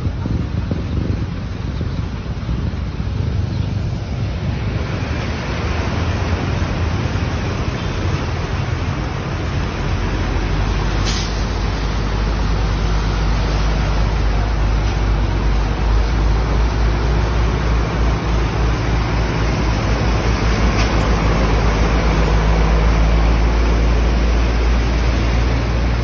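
Road vehicle engines and traffic noise over a steady rushing haze, with a deep rumble that grows louder from about ten seconds in.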